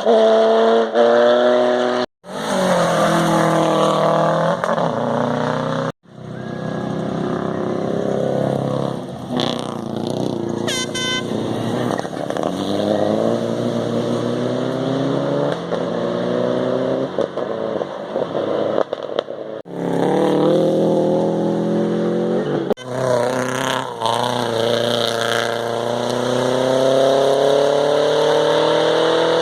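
Rally cars at full throttle on a special stage, the engines rising in pitch through the gears and dropping at each shift as they pass. It comes as several short passes, each cutting off abruptly.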